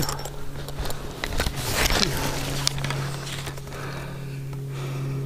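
Footsteps crunching on dry leaves and twigs as a person moves through woodland brush, with scattered sharp crackles in the first couple of seconds that then settle, over a steady low hum.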